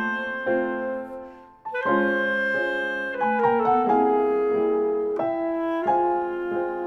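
Slow instrumental soundtrack music: a melody of held notes on clarinet over piano, with a brief pause about a second and a half in.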